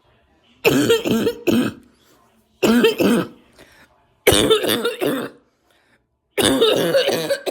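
A woman's deep, barking cough rattling through the chest, in four loud fits of several quick coughs each, roughly two seconds apart. She puts the cough down to allergies together with smoking.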